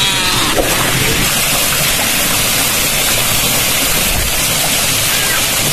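Steady rush of water from the waterfall and river, a constant even hiss with no breaks.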